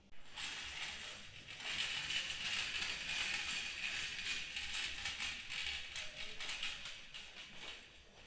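A wheeled metal rack cart crammed with upright carbon fibre rod blanks being pushed along, the rods rattling and clattering against each other and the rack. The rattle starts suddenly and fades toward the end.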